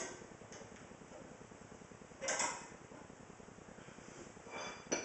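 Car jack being cranked up with its jack hook, creaking and ticking steadily as it raises the car, with a metal clink about two seconds in and another near the end.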